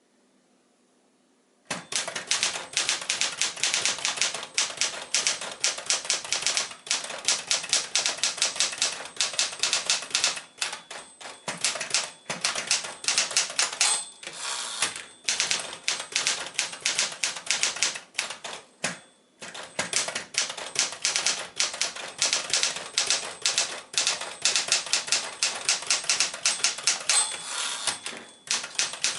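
JCPenney Caravelle 12 typewriter, a rebadged Smith-Corona Galaxie manual, being typed on: a fast run of key strikes that starts about two seconds in, with a few short pauses.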